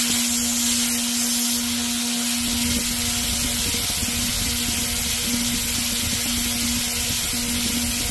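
Pool pump running with a steady hum over a constant hiss of rushing water and air, as the pump and filter are brought back into service.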